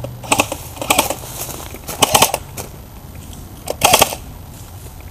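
Airsoft rifle firing four short full-auto bursts of rapid clicks, spread over about four seconds.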